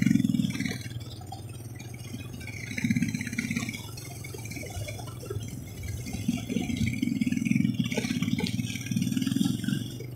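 Motorcycle riding over a rough dirt road: the engine runs with rattling and clatter from the bike, swelling in repeated surges.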